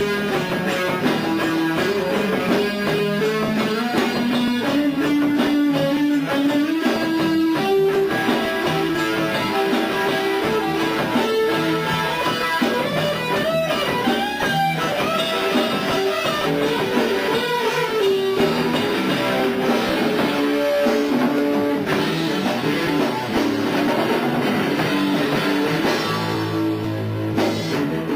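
Rock band playing: electric guitar over bass guitar and drum kit.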